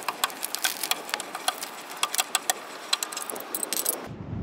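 Scissor jack being cranked up by hand with its hook-and-tyre-iron winding lever: quick, irregular metallic clicking, several clicks a second, as the screw is wound to raise the car. The clicking stops abruptly near the end.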